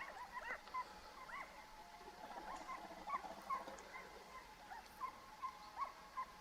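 Distant hunting dogs barking and yelping, many short faint calls overlapping at an uneven pace.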